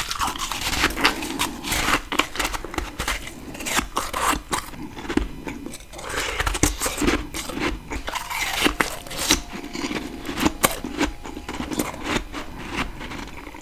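A person biting and chewing fresh freezer frost: dense, irregular crunches one after another.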